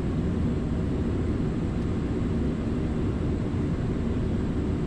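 Steady cockpit noise of an Airbus A340-300 in flight on approach with flaps extended: an even rushing of air and systems hum, strongest in the low range, with no change.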